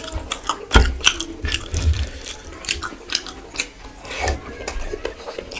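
A person chewing and eating close to the microphone: irregular wet clicks and crunches of the mouth, several a second, with a few dull thumps.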